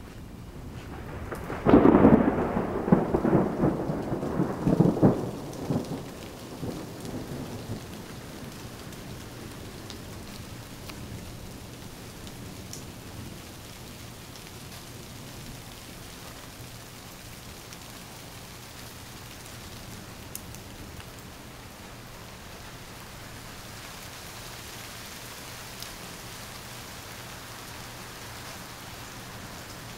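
A loud peal of thunder breaks about two seconds in and rolls in several peaks for about five seconds before dying away. Steady rain falls throughout and grows a little louder near the end.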